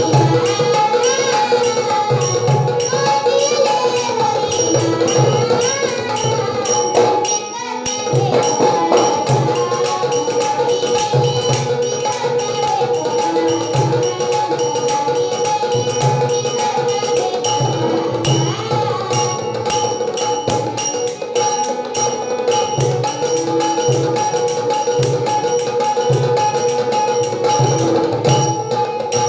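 A girl singing a Marathi bhavgeet to harmonium, with a dholki beating a steady rhythm and small brass taal cymbals clinking in time.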